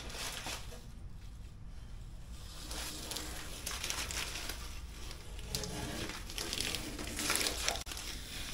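Blue painter's masking tape being pulled off car bodywork and crumpled up by hand, crinkling and rustling, louder over the second half.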